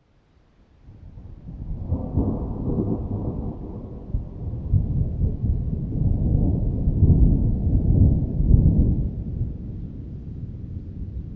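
Thunder rumbling: a deep, low rumble that builds up out of silence, swells once, then swells again louder in the middle before slowly fading.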